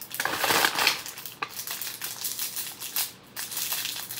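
Clear plastic wrapping crinkling and rustling, with scattered clicks as a small plastic toy container is twisted and pried open by hand.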